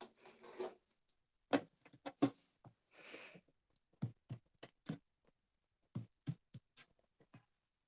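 Scattered small knocks and clicks, about a dozen, with two short rustles, one at the start and one about three seconds in: handling noise between passages.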